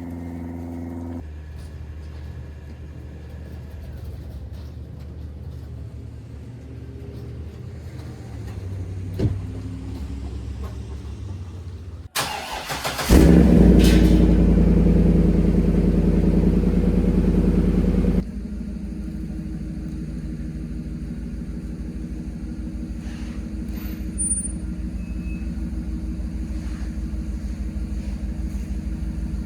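Pickup truck engine starting about twelve seconds in, running loud for about five seconds, then dropping abruptly to a steady idle. Before the start there is a low, steady hum.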